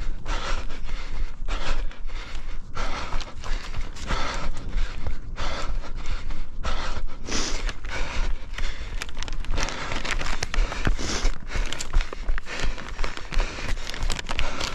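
A runner's heavy, rhythmic breathing close to the microphone, with running footsteps.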